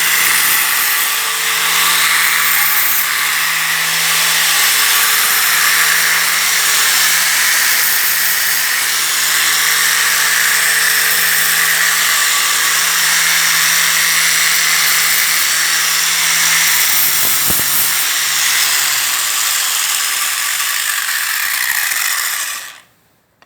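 Angle grinder grinding: a loud, steady, harsh hiss over the motor's hum. The hum drops in pitch a little past the middle, and the grinding then cuts off abruptly near the end.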